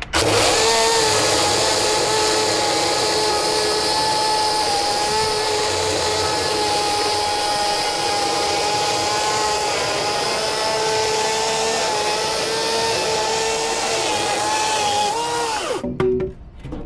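EGO 16-inch battery chainsaw running at full speed with a steady high electric whine, cutting wood, the pitch sagging slightly under load. Near the end the trigger is released and the motor winds down with a falling pitch and stops.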